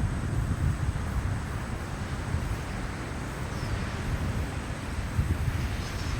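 Wind buffeting the microphone outdoors: a gusty low rumble with a steady hiss above it.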